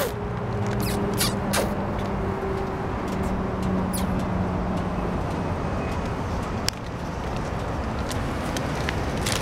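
Steady motor-vehicle hum and road noise, with a few short clicks.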